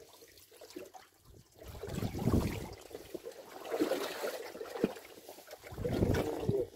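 Seawater sloshing and lapping against a small fishing boat's hull, coming in irregular surges with a few light knocks.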